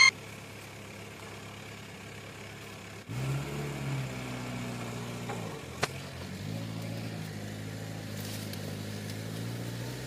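An engine running at a steady low idle, coming in about three seconds in, with a single sharp click a little before the six-second mark.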